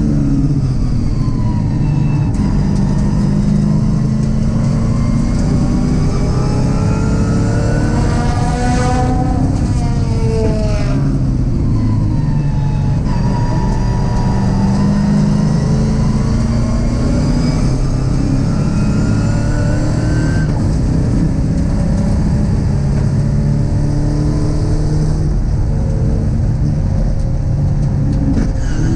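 Race-car LS V8 engine in a Mazda MX-5, heard from inside the cabin at racing speed. The engine pitch drops steeply about ten seconds in as the car slows for a corner, then climbs again through gear changes as it accelerates hard down the next straight.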